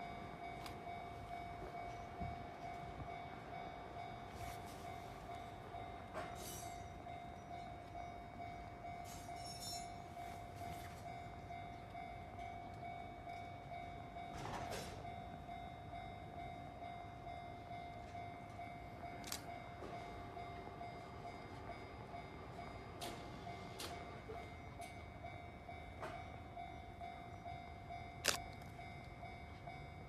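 Railway level-crossing warning bell ringing on and on, the sign that a train is approaching; a few sharp clicks, the loudest near the end.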